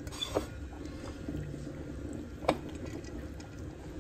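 Wet soaked moong dal being dropped by hand into a stainless-steel mixer-grinder jar: a soft wet pattering of grains against the steel. Two sharp clicks stand out, the louder one about two and a half seconds in.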